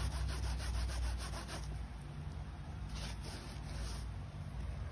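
A wet cleaning wipe scrubbed rapidly back and forth along a sneaker's rubber sole edge: a quick run of rubbing strokes that stops about a second and a half in, then a shorter burst of strokes about three seconds in.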